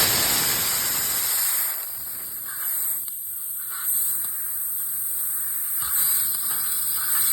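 Fibre laser cutter's compressed-air assist gas hissing through the cutting head as it cuts 1.5 mm 304 stainless steel. The hiss rises and falls several times.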